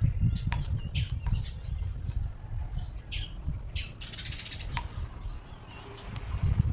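A small male bird fighting its reflection in a motorcycle mirror, the behaviour of a territorial male: short chirps, sharp taps, and a brief flutter of wings about four seconds in. A low rumble runs underneath.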